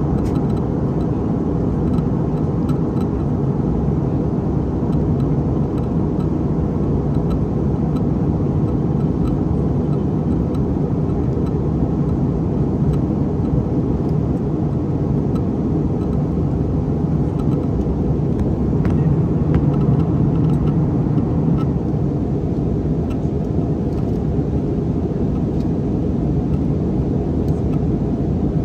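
Steady cabin rumble of an Airbus A319-131 in flight, a mix of its IAE V2500 engines and airflow noise. The rumble swells slightly about two-thirds of the way through, then settles back.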